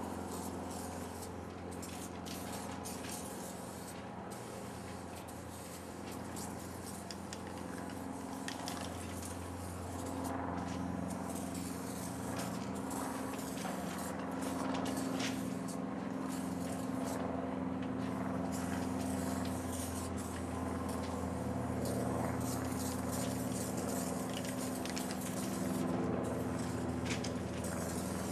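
Aerosol spray-paint can hissing in stops and starts as paint goes onto the car's side, over a steady low engine hum that grows a little louder about ten seconds in.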